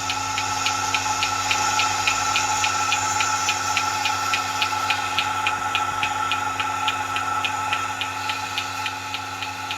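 Milking machine running: the vacuum pump hums steadily while the pulsator clicks rapidly and evenly, about four to five clicks a second.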